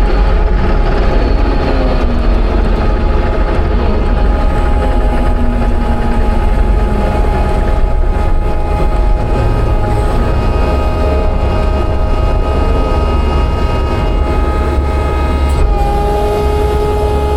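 Skid steer engine running steadily under load, with its hydraulic system whining at several steady pitches over a heavy low rumble; a higher whine joins near the end.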